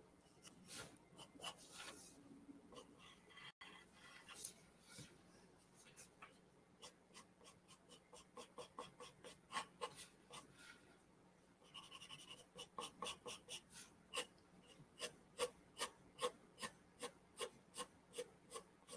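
Pencil scratching on drawing paper in short, faint sketching strokes. They are scattered at first, then come in a steady run of a little over two strokes a second in the second half.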